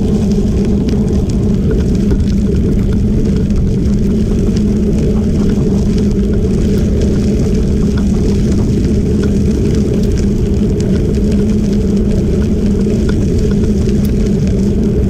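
Steady wind rumble on the microphone of a camera moving at about 12 mph along a gravel trail, mixed with tyre noise and faint scattered crackles of gravel.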